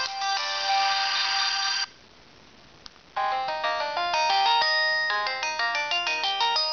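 Sony Ericsson Z300a flip phone playing a polyphonic ringtone through its small speaker. The tune stops about two seconds in, and after a short pause and a faint click a different polyphonic ringtone starts with a quick run of notes.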